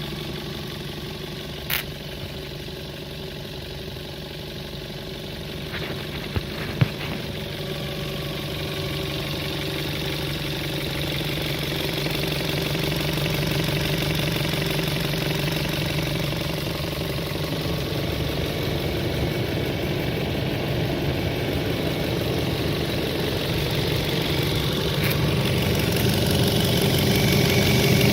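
Engine idling steadily with a knock whose cause is unknown, growing gradually louder, with three short sharp clicks in the first seven seconds.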